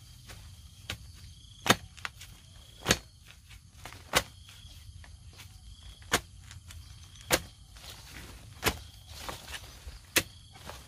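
A digging tool striking into soil and roots to cut out a banana sucker: about eight sharp blows, one every second or two. Insects chirp faintly in the background.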